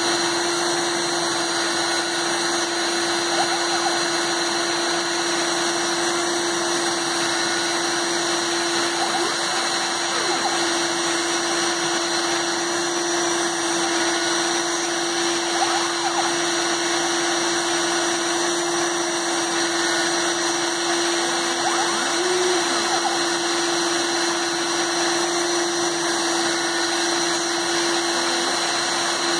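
Proxxon rotary-tool spindle on a home-made CNC machine running with a steady whine as it drills holes in a PCB with a 1.05 mm bit.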